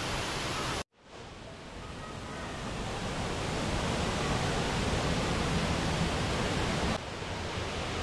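Waterfall: a steady rush of falling water. It cuts out briefly just under a second in, then swells back up over a few seconds, and drops a little in level near the end.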